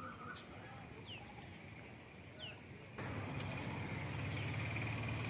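A bird repeating a short, high, falling chirp about every second and a half. About three seconds in, a louder steady low rumble starts abruptly, like an engine running, and partly covers the calls.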